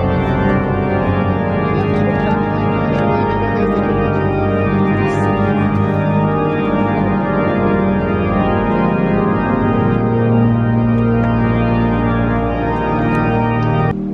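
Organ music in sustained held chords, the low notes shifting about two-thirds of the way through; it cuts off suddenly near the end.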